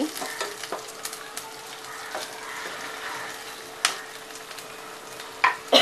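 Hot oil sizzling in a non-stick pan as green chillies, curry leaves and ginger-garlic paste are sautéed for a tempering, stirred with a plastic spatula that scrapes and taps the pan. A couple of sharper knocks of the spatula on the pan come about four seconds in and near the end.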